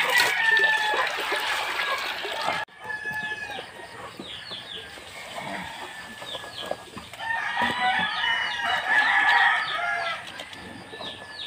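Roosters crowing over clucking chickens, with long crows near the start and a louder one from about seven to ten seconds in. The sound drops out abruptly for a moment a little over two seconds in.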